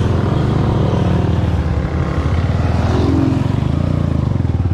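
Small motorcycle engine of a motorcycle-and-sidecar tricycle running while riding along the road, with wind and road noise; the engine note rises briefly about three seconds in.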